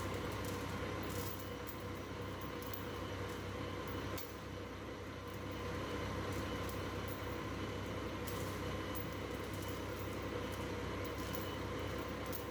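Forklift engine running steadily under a constant hum with a few steady tones, with faint scattered ticks; it eases slightly about four seconds in.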